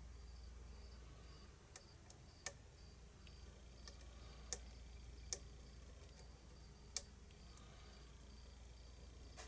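Small, sharp clicks of a lock pick working the pins inside a challenge lock, five ticks at irregular intervals, the loudest about seven seconds in. Under them a cricket chirps faintly.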